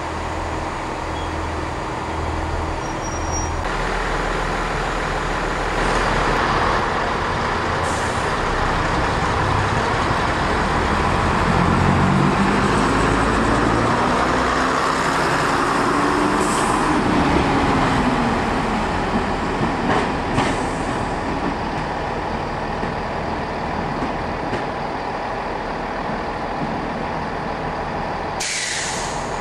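Class 121 'bubble car' single-car diesel railcar pulling away: the underfloor diesel engine throbs at idle, opens up about four seconds in, and its note rises and falls as the car gathers speed and runs off, with a brief loud hiss near the end.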